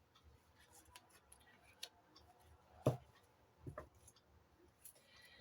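Faint scattered clicks and taps of tarot cards being handled on a table, with a sharper knock about three seconds in and a smaller one just before four.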